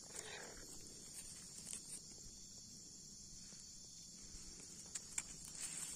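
Faint, steady high-pitched chirring of insects in the background, with a couple of soft clicks near the end.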